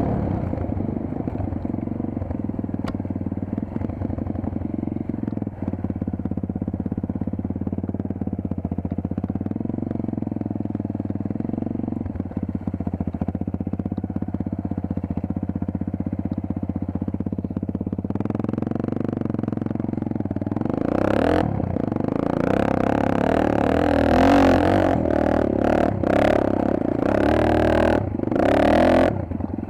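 Dirt bike engine running steadily, then revving harder and varying in pitch from about two-thirds of the way in, with gusts of rushing noise near the end.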